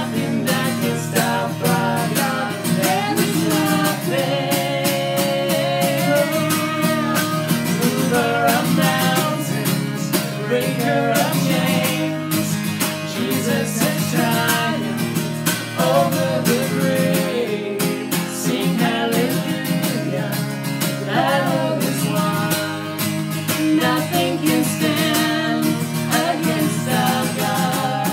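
Contemporary worship song played by a band, with guitar and drums at a steady level.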